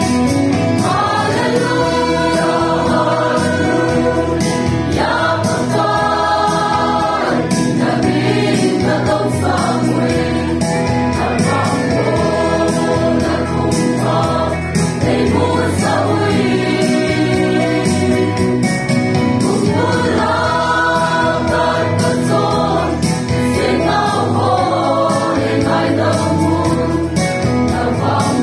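A church choir of young women and men singing a hymn together in long, held phrases.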